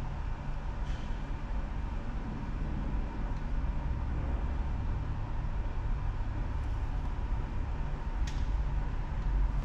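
Steady low rumble of a car engine idling, heard from inside the cabin, with a faint click about a second in and another near the end.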